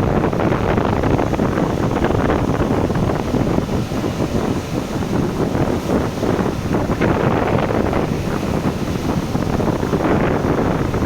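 Sea wind buffeting the microphone over the wash of waves: a loud, steady rushing with an irregular gusty flutter.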